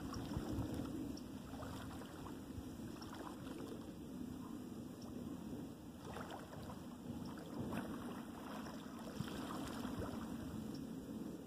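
Wind buffeting the microphone over open water, a steady low rumble with occasional soft gusts and faint water movement.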